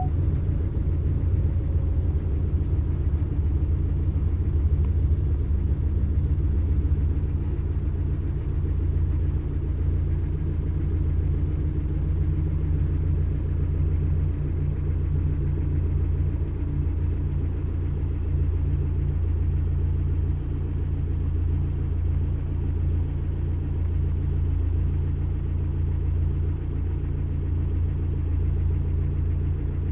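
A steady low rumble with a faint hum in it, even in level, with no distinct sounds standing out.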